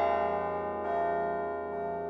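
Carillon bells of the Laura Spelman Rockefeller Memorial Carillon, played from the baton keyboard. Earlier notes ring on and fade, and a new strike comes in about a second in.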